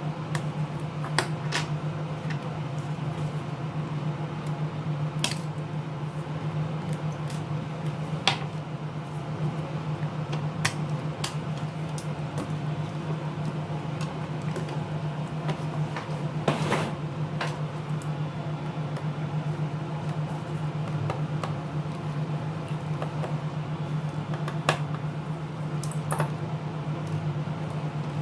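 Scattered light clicks and taps of small repair tools and parts being handled as the tablet is taken apart, over a steady low hum.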